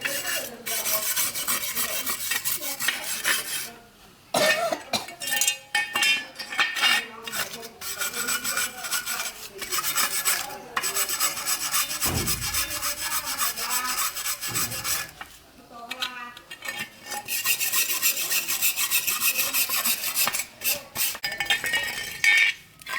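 Hand scraping: a rough tool rubbed quickly back and forth over a hard surface in rapid strokes, with short breaks about four seconds in and again around fifteen seconds.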